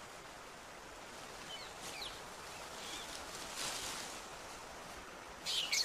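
Faint forest ambience with a few short high bird chirps about two seconds in, and a louder high call near the end.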